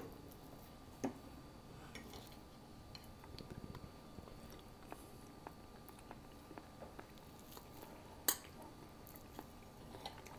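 Quiet chewing of mouthfuls of meatloaf, with a few light clicks of forks against ceramic plates, the sharpest about eight seconds in.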